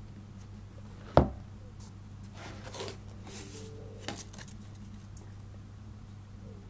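Hands handling a leather turf football trainer: brief rustling and rubbing noises as it is turned over, with one sharp knock about a second in, over a steady low hum.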